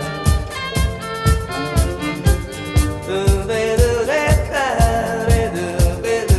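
Instrumental music with a steady beat and a violin-like melody that slides up in pitch about four seconds in.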